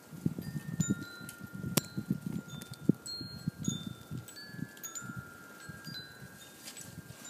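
Wind chimes ringing, several metal tones struck one after another and left to sound together. Under them come irregular low scuffs and thumps, with a sharp click about two seconds in.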